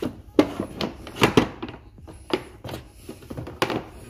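Irregular knocks, clicks and scrapes of cardboard packaging and boxed equipment being handled and lifted out of a box, several sharp knocks a second or so apart.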